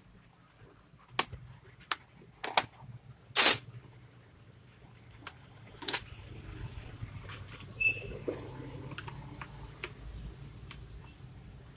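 Scattered clicks and knocks of Lenovo G470 laptop parts being handled and taken apart, about six sharp ones. The loudest is a short rasping knock about three and a half seconds in, and one near eight seconds rings faintly. A low steady hum lies underneath.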